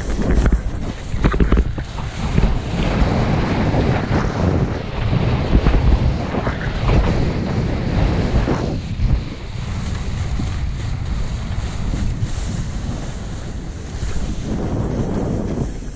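Wind rushing and buffeting over a body-mounted camera's microphone during a fast slide down snow, over the hiss and scrape of the edges on the snow. Louder for the first half, easing about halfway through, then building again near the end.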